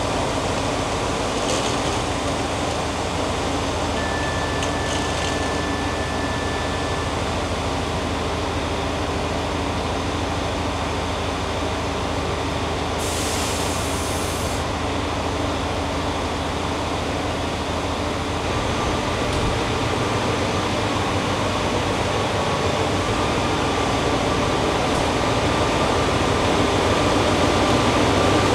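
A Trenitalia Minuetto diesel multiple unit running slowly into the platform with a steady low engine hum that grows louder as it draws up close. A thin high squeal is heard briefly a few seconds in, and a short burst of air hiss comes about halfway through.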